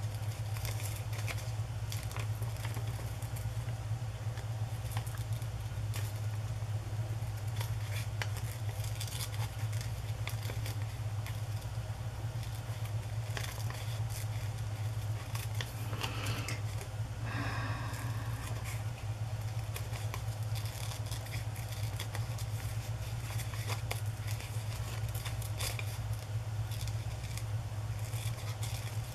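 Small scissors snipping paper gift wrap in a run of light, irregular snips, with the paper rustling as it is turned between cuts. A steady low hum sits underneath.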